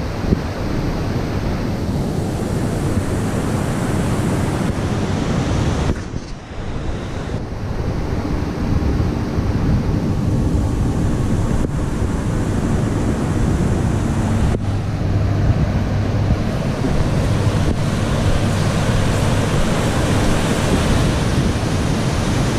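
River water rushing over a weir, a steady roar with wind buffeting the microphone. It breaks off abruptly a few times, and a steady low hum runs under it through the middle.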